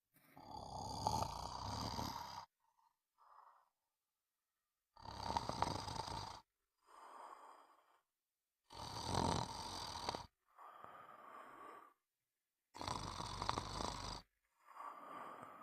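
Snoring in a slow regular rhythm: four loud snores about four seconds apart, each followed by a softer, shorter breath sound.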